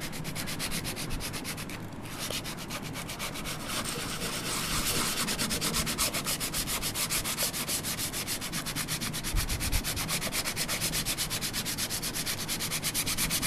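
180-grit sandpaper on a small aluminum block, rubbed back and forth over a painted metal lathe plate at about three strokes a second. It is sanding the paint off the plate's raised letters and figures, the high spots.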